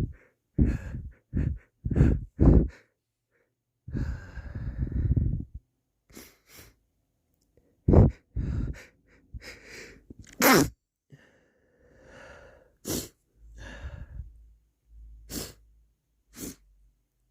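A person stifling sneezes: a run of short catching breaths, then several sharp, held-back sneezes in the second half, with sniffling between them.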